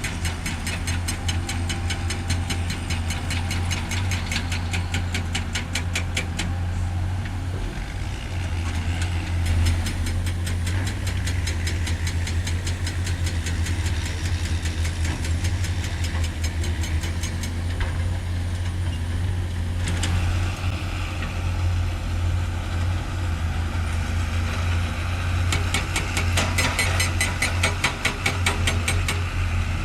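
Heavy earthmoving machine's diesel engine running steadily with a deep drone, and a fast, even clicking that comes and goes.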